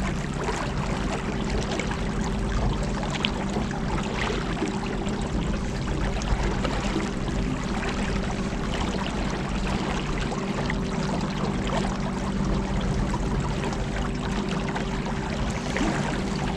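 Boat under way: its motor runs at a steady pitch with a constant hum, and water rushes past the hull.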